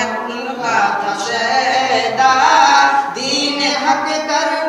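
Unaccompanied naat, Urdu devotional poetry, sung by a young male voice into a microphone, holding long notes and bending slowly between pitches.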